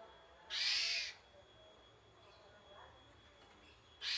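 Pied starling (jalak suren) giving its harsh, hissing screech call, each about half a second long: one about half a second in and another starting near the end, with faint softer notes between.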